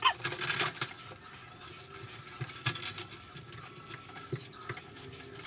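Hands handling electrical cable at a hole in a wall: the cable rustles and scrapes against the wall, with scattered small clicks and taps, busiest in the first second.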